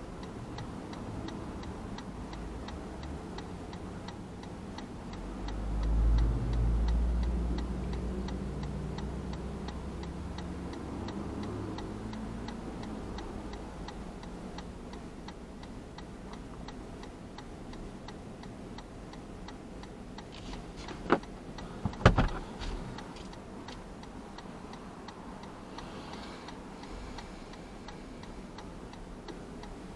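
A car's turn-signal indicator ticking steadily in the cabin while the car waits stopped at an intersection. The low rumble of a passing vehicle swells about six seconds in, and two sharp knocks come a little after twenty seconds.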